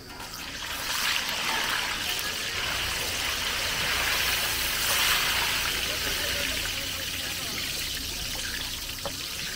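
Hot oil sizzling in a large iron kadhai as a batch of puris deep-fries. It is a steady hiss that swells in the first second or so and eases a little toward the end.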